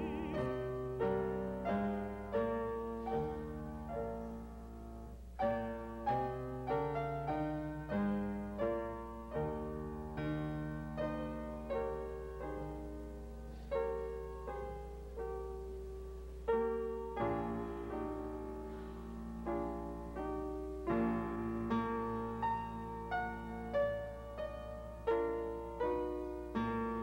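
Grand piano playing alone: a slow classical passage of struck chords, about one or two a second.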